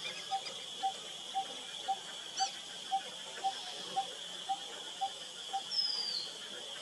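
Forest ambience: an animal call of one short note, repeated evenly about twice a second, over a steady high insect drone, with a brief falling whistle near the end.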